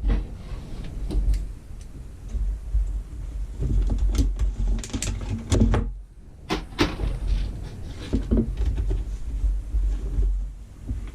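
Close handling noise: irregular knocks, clicks and rubbing with a deep rumble, as of a camera being picked up and repositioned, with a cluster of sharper knocks about halfway through.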